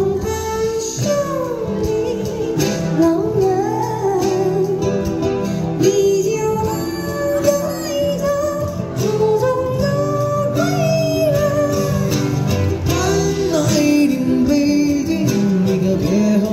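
A small live band playing through a PA: acoustic guitar and percussion under a wavering, sliding melody line sung over the top.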